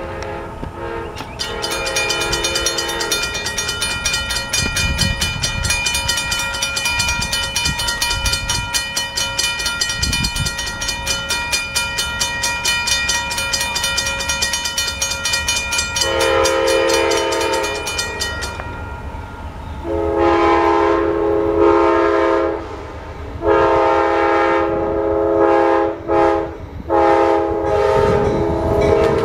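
Railroad grade-crossing bell ringing rapidly while the gates come down, then an approaching Amtrak GE Genesis diesel locomotive's horn blowing a series of loud blasts, mostly long with a short one, as it nears the crossing. The horn starts about halfway through, and the bell stops soon after.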